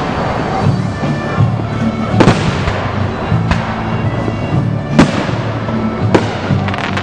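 Aerial fireworks bursting in the sky, about four loud bangs a second or so apart, with music playing underneath.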